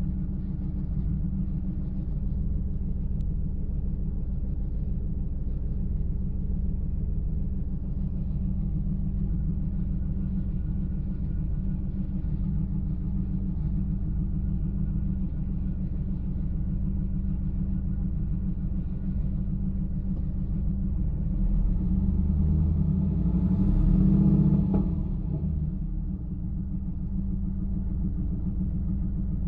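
GM LS1 5.7-litre V8 idling with a misfire. About twenty-one seconds in, the revs rise for a few seconds and then fall back to idle.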